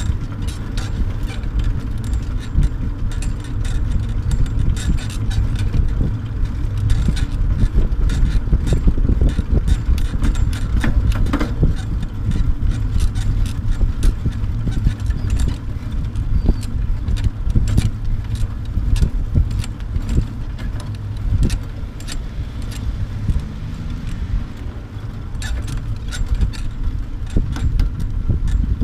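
Low wind rumble on the microphone together with the clatter and rattle of a bicycle-towed dog trailer rolling over a paved path, with frequent small clicks and knocks throughout.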